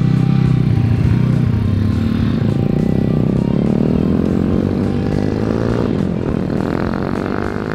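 Small single-cylinder four-stroke engines of Honda Trail 70 mini bikes riding past. Their pitch rises and falls with the throttle.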